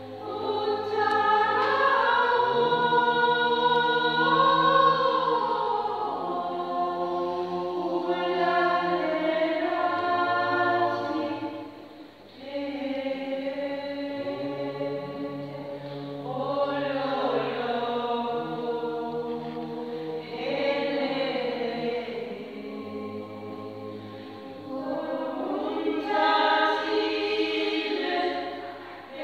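Small gospel choir singing in harmony, holding chords in long phrases, with a short break about twelve seconds in.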